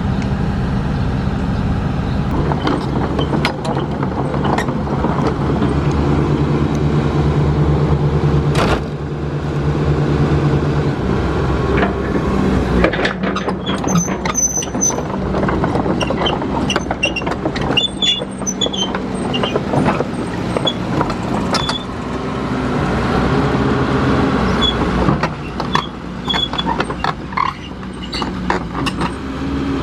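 Diesel engine of heavy construction machinery running steadily, with a sharp knock about nine seconds in and scattered metal clanks and short high squeaks through the latter part.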